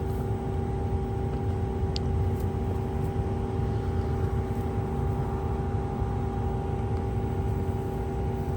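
Combine harvester running steadily: a constant low engine rumble with a steady mechanical hum over it.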